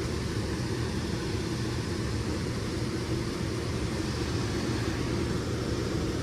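HVAC air handler's blower motor running steadily: an even rush of moving air over a constant low hum.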